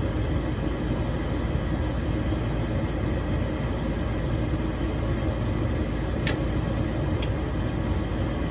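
Trane XB80 gas furnace starting up after a gas-valve replacement: a steady mechanical hum and rumble, with two sharp clicks about six and seven seconds in.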